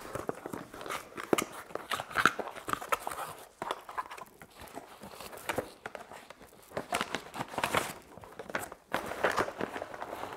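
Handling a cardboard box and a plastic bag of bolts and nuts: irregular rustling, scraping and small knocks, mixed with footsteps on a concrete floor.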